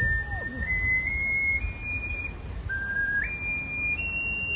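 Soprano ocarina playing a slow melody of pure, held notes that climb step by step, breaking off briefly about halfway, then rising again to a higher held note.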